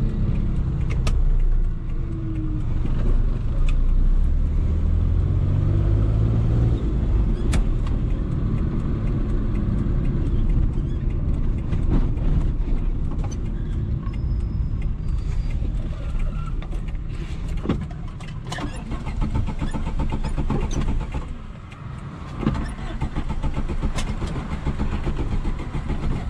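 Inside the cabin of a 1989 Suzuki Khyber, its G10 993 cc three-cylinder petrol engine running with road noise as the car drives: the engine note rises as it accelerates a few seconds in, then runs steadily. About twenty seconds in the engine sound drops away briefly as the car slows.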